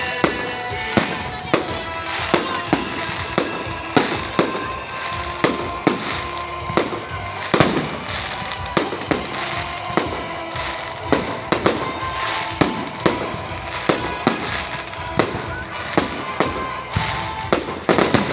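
Fireworks salute: a rapid, irregular series of bangs from shells bursting overhead, about one to two a second, with steady tones of music underneath.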